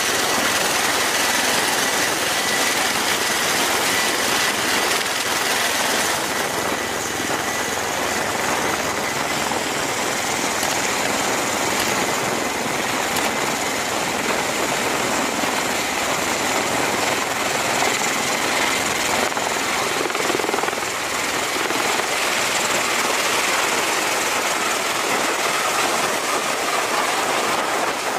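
Bell Boeing CMV-22B Osprey tiltrotor lifting off and climbing away: the steady, loud noise of its two proprotors and turboshaft engines, with a high turbine whine.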